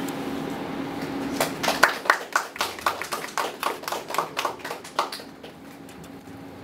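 Hands clapping in quick, even applause, about five claps a second, starting about a second and a half in and stopping about five seconds in.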